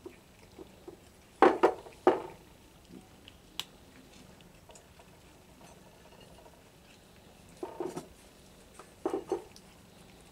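Cats eating dry kibble from a ceramic plate: short clusters of crunching and of kibble and plate clattering, a few strokes each, twice in the first couple of seconds and twice again near the end.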